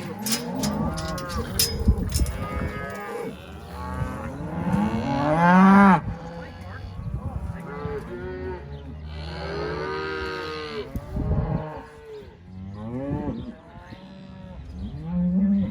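Cows and calves mooing and bawling, many calls from several animals overlapping, the loudest about six seconds in. The cattle are calling to one another as the calves are returned to their mothers after branding.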